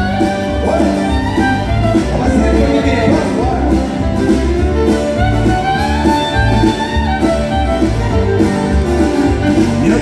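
Live country music: acoustic guitars strummed and a fiddle playing over a steady low beat, with a man singing.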